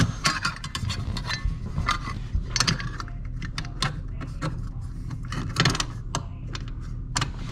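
Metal junction-box cover on a dishwasher's wiring box clicking and scraping as it is worked into place by hand: a run of irregular light metallic clicks and knocks.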